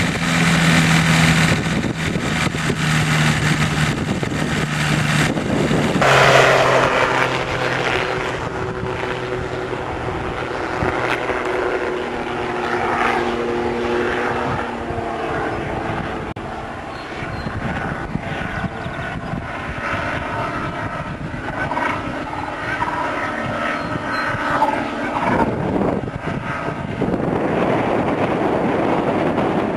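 Ultralight trike's engine and propeller running at high power through its takeoff and flight overhead. It is loudest near the start and again about six seconds in, and its pitch steps lower about six seconds in as it goes by.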